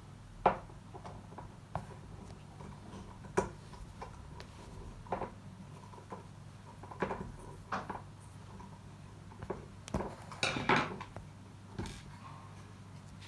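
Small parts of a lamp kit and tiny screws being handled and fitted, giving scattered sharp clicks and taps, with a quick run of rattling clicks about ten seconds in.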